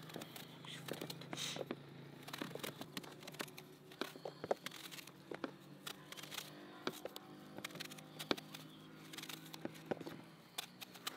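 Kitchen knives peeling pale green squash by hand: irregular short scrapes and little ticks as the blades shave off the skin.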